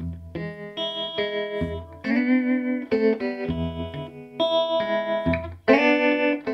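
Electric guitar played through an early-1960s Davoli D531T valve amplifier with its tremolo set to its slowest speed. Chords and single notes ring out, each struck about every one to two seconds, and the tremolo makes the volume pulse slowly.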